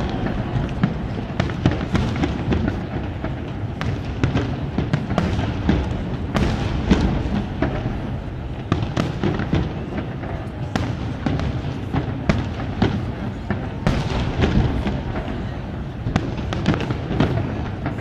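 Fireworks display going off continuously: many sharp crackling pops and bangs in quick, irregular succession over a steady low rumble of booming shells.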